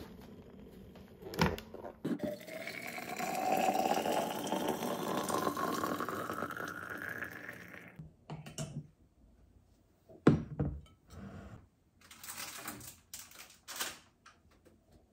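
Hot water from an electric kettle poured into a barley-tea bottle, the note of the pour rising steadily for about six seconds as the bottle fills. Before it comes a sharp click, and after it a run of clicks and knocks from the bottle and its cap being handled.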